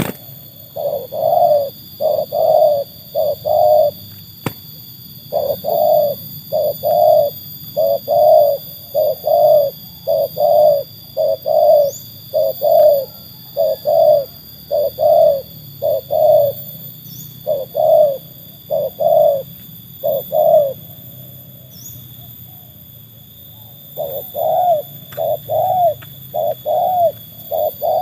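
Spotted dove cooing: a long run of short, low coo notes, about two a second, broken by a brief pause a few seconds in and a longer one of about three seconds near the end.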